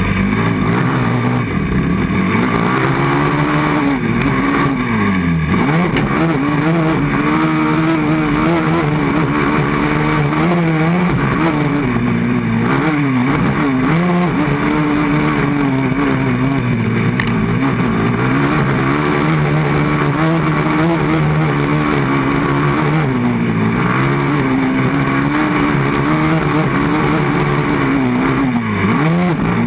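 Yamaha 450 quad's single-cylinder four-stroke engine at race pace, its pitch rising and falling continuously as the throttle is worked on and off, with sharp dips about five seconds in and just before the end.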